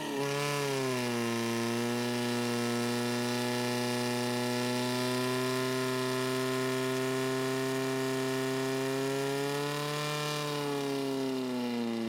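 Portable fire pump's petrol engine running hard as it pumps water through the attack hoses. Its pitch drops in the first second and then holds steady, rising slightly about ten seconds in and falling back near the end.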